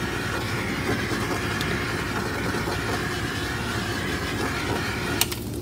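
Handheld gas torch burning with a steady hiss, cut off with a click just after five seconds in.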